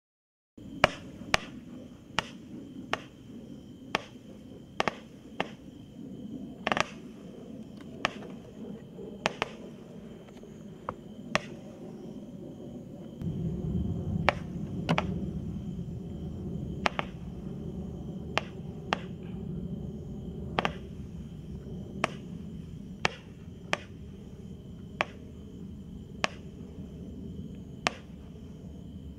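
Outdoor night ambience: sharp, dry clicks every second or so, irregularly spaced, over a steady high thin whine, with a low rumble that rises about halfway through.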